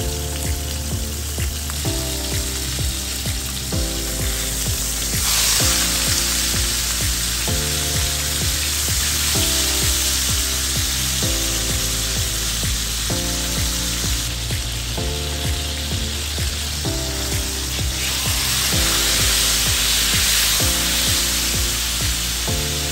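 Rump steak frying in hot oil in a non-stick pan, a steady sizzle that gets louder about five seconds in and again near the end, with background music under it.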